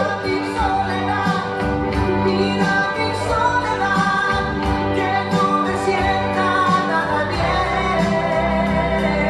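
A recorded song with a singer's voice, played back over a portable loudspeaker for a lip-sync performance, with long held notes.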